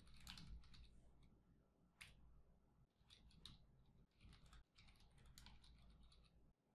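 Faint computer keyboard typing: irregular runs of quick key clicks as words are typed.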